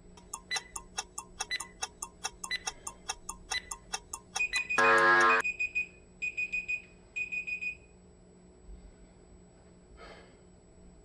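Workout interval timer counting down: quick ticking beeps, about three a second with a stronger beep each second, then a loud buzzer about five seconds in marking the end of the interval, followed by three short bursts of high beeps.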